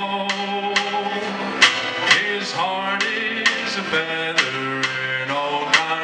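Live country band: a man singing long held notes that slide from one pitch to the next, over acoustic guitars, upright bass and drums, with sharp drum hits landing every second or so.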